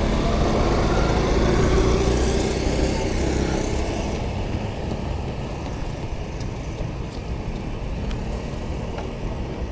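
A motor vehicle passing close by on the street. Its engine noise is loudest in the first two seconds and fades away by about four seconds in, leaving a steady low traffic rumble.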